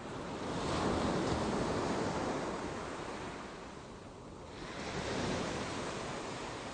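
A rushing noise that swells about a second in, ebbs, then swells again about five seconds in.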